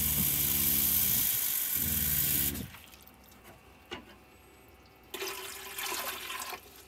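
Water running from a kitchen faucet into a plastic cup, the pitch rising as the cup fills, stopping about two and a half seconds in. About five seconds in, the cup of water is poured into a humidifier's tank for a second and a half.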